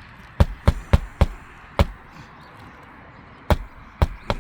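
Hammer striking roofing nails into the roof decking under lifted asphalt shingles, each nail driven flush. Four quick blows and a fifth, a pause of about a second and a half, then three more blows near the end.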